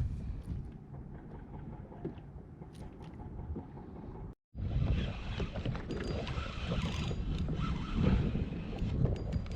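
Wind buffeting the microphone over water moving around a fishing kayak at sea, with a few light clicks. The sound drops out for a moment a little before the middle and comes back louder and gustier.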